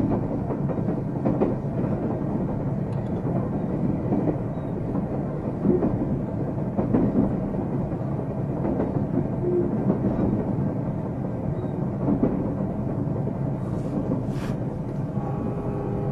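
JR Central 373-series electric multiple unit running, heard from on board: steady wheel-and-rail rumble with occasional rail-joint clicks and faint motor tones. There are two brief hisses about two seconds before the end.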